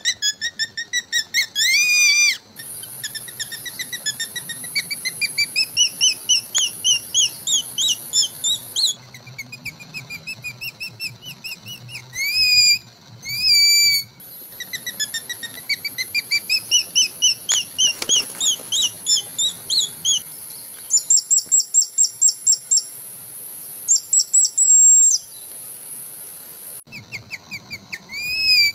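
A leaf whistle held to the lips and blown in imitation of a bird's call: runs of quick, shrill chirps that climb in pitch, broken by short pauses, with a few longer calls that bend up and fall away.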